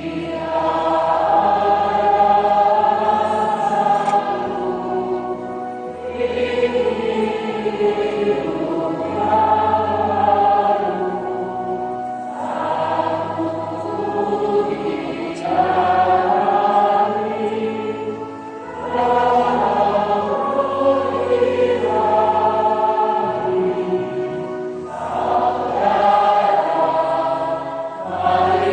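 Church choir and congregation singing a hymn together, many voices holding notes in phrases of about three seconds with short dips between them.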